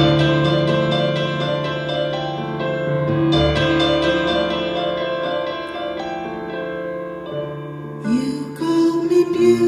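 Roland RD-800 stage piano playing an instrumental passage of held chords with repeated high notes. A singer's voice comes in near the end.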